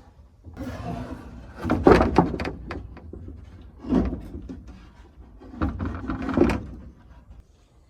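Knocks, clatters and scrapes of solid objects being handled, in three bursts, the loudest about two seconds in.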